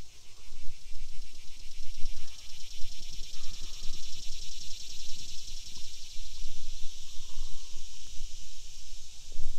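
Insects chirping in a continuous chorus, a fast, even, high-pitched pulsing trill, over a low rumble.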